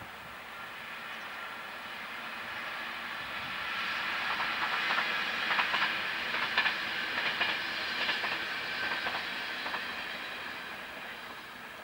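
Locomotive-hauled passenger train of a Siemens HellasSprinter electric locomotive and UIC-Z1 coaches passing by. Its wheel and rail noise swells to a peak mid-way, with a run of sharp clicks as the wheels cross rail joints, then fades as it moves off.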